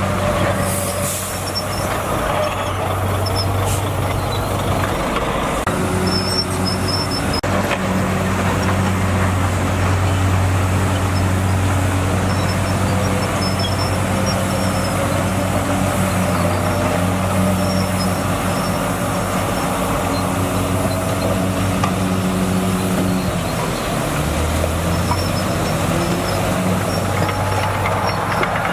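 Heavy diesel engine of a Komatsu bulldozer running steadily, its note changing a few times, around 6 seconds in and again near 24 seconds.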